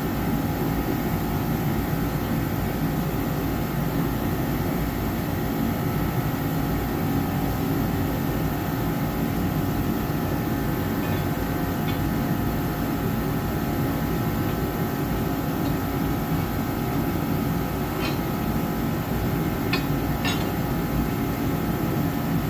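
A garage heater running steadily, a low rumble with a faint hum over it. Near the end, a few light metal clinks as steel wrenches are handled.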